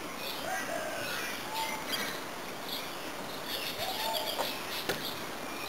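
Birds chirping and calling, short whistled notes that rise and fall. A single sharp knock about five seconds in.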